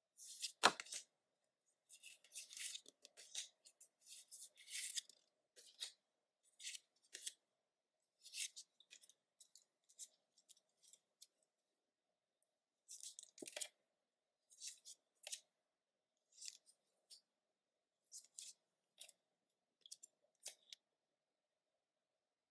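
Pokémon trading cards and their paper and plastic packaging being handled: scattered short rustles and crinkles, with a soft knock about a second in and another about halfway through.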